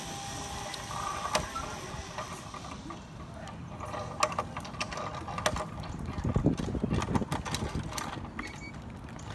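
Metal carabiners and a zip-line trolley clicking and clanking as they are handled and clipped onto a steel cable, with a low rumble in the middle.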